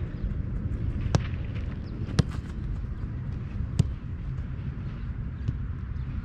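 Three sharp impacts of a football, spread over about three seconds, over a steady low rumble.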